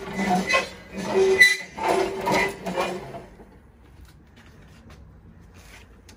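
Metal kebab skewers clattering and scraping against a steel grill rack as they are moved, in a busy run of knocks that stops about three seconds in.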